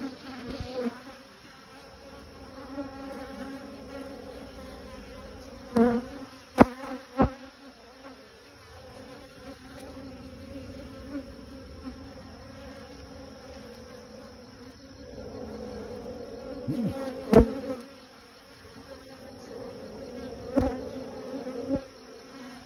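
Honeybees buzzing steadily on the open hive's top bars. A few sharp knocks stand out above the hum, a cluster about six to seven seconds in and another near seventeen seconds, with two more near the end.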